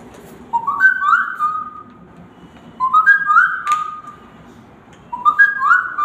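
A young woman whistling an imitation of a Samsung phone's message notification tone: a short phrase of quick notes stepping upward, whistled three times, about every two and a half seconds.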